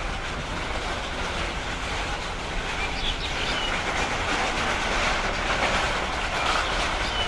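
Steady outdoor city background noise: an even rumble and hiss with a few faint high chirps.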